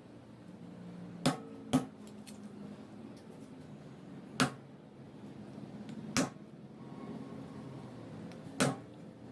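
Five sharp knocks, irregularly spaced a half second to two and a half seconds apart, of a knife chopping on a cutting board during food preparation.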